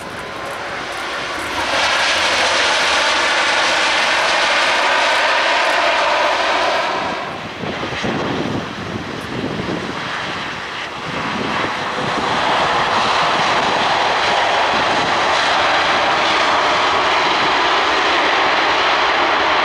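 Turbofan jet engines of a Boeing 787-9 (Rolls-Royce Trent 1000) on the runway: a loud rush of jet noise with a faint whine that builds over the first couple of seconds. Around the middle it drops to a lower, uneven rumble, then returns loud and steady for the rest.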